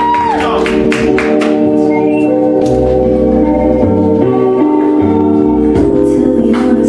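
Live band music: sustained organ-like keyboard chords over a bass line that changes note every second or so, with drum and cymbal hits in the first second and a half.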